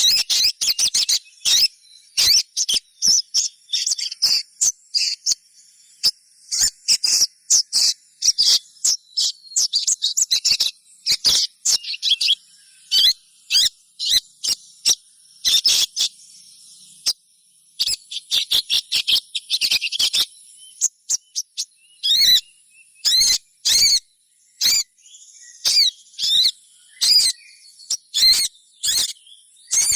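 Little spiderhunter (sogon) calling: rapid, high, sharp chirps in irregular bursts with short pauses. A steady, high-pitched insect drone runs underneath.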